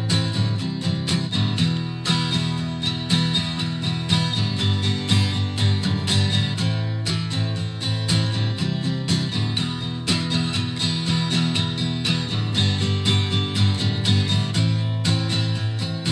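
Guitar being strummed and picked in a steady rhythm, chords ringing with many quick strokes.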